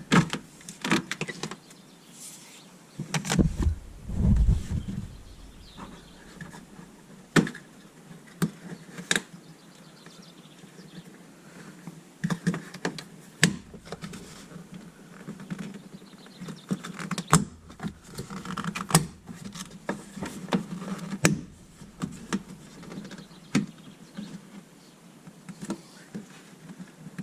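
Scattered clicks, knocks and clatter of hand tools working on a car's body-panel fixings and plastic trim, with a few heavier thuds about three to five seconds in.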